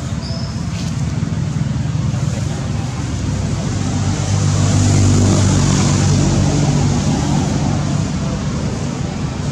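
A motor vehicle engine passing, growing louder towards the middle and then fading, over steady low background noise.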